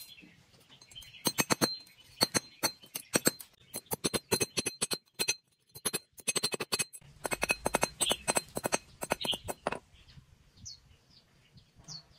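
Hand hammer striking a length of steel wire laid on a piece of railway rail used as an anvil: quick runs of sharp metallic blows with a ringing note and short pauses between runs, stopping about ten seconds in.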